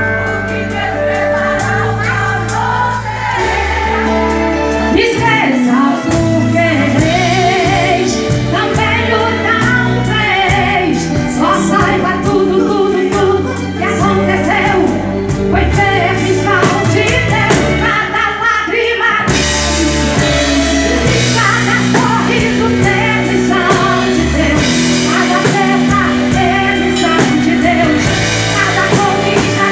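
Live gospel song: a band with keyboard plays under a sung melody. About two-thirds of the way through, the drums and cymbals come in fuller.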